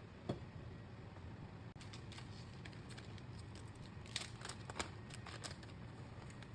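Faint, scattered light clicks and taps of a kitchen utensil against a pan, with one sharper tap about a third of a second in, as sautéed mushrooms are added on top of setting omelette eggs.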